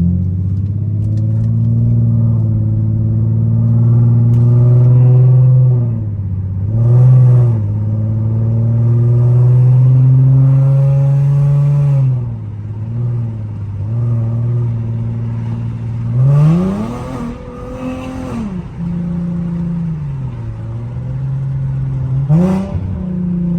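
Infiniti G37's VQ-series V6 engine and loud aftermarket exhaust with test pipes, heard from inside the car while driving: a steady drone broken by several quick revs that rise and fall, the biggest about two-thirds of the way through. Described as loud as hell; the owner is still unsure whether an exhaust leak remains after the repair.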